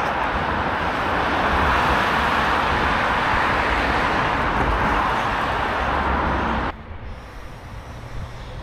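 Steady rushing running noise of a moving vehicle with a low rumble underneath, cutting off abruptly near the end.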